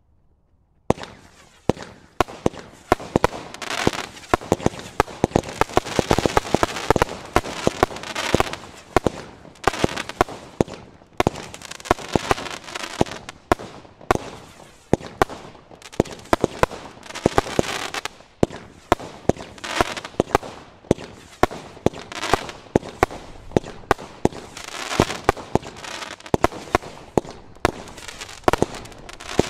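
Black Cat Tranquility Base 54-shot firework cake firing, starting about a second in: a steady volley of sharp launch pops and bursting shells, often a couple a second, with a rushing hiss between the reports.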